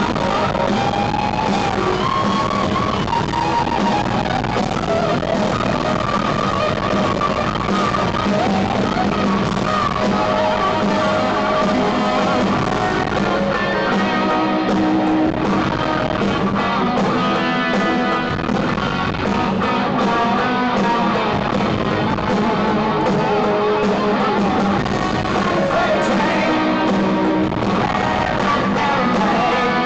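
Live hard rock band playing loud: distorted electric guitars over bass and drums, recorded from the audience. The singer's voice comes in near the end.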